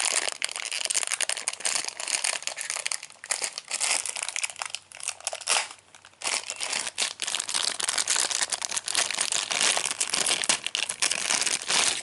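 Clear plastic wrapping crinkling and rustling almost without a break as a toy is worked out of its packaging, with a short lull about halfway through.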